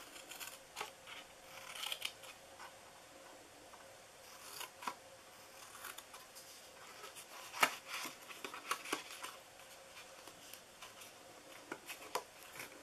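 Small scissors snipping short slits into cardstock: a series of separate, crisp snips with pauses between, the sharpest a little past halfway through.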